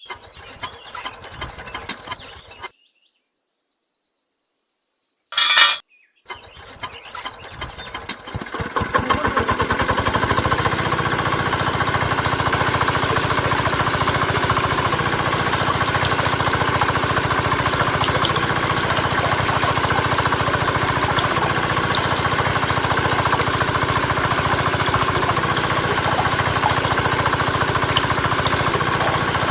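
A small engine starting up: a sharp click about five seconds in, then rapid ticking that speeds up and grows louder over a few seconds until it runs steadily.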